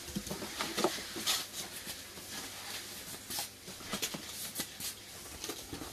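Cardboard box being handled: the flaps and the packing inside rustle and scrape as hands reach in, a string of irregular rustles and light knocks.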